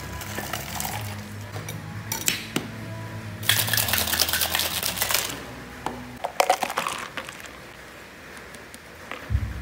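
Stainless steel cocktail shaker: a few metal clinks as the tins are fitted together, then it is shaken hard for about two seconds with its contents rattling inside. About a second later come a few sharp metal knocks as the tins are broken apart.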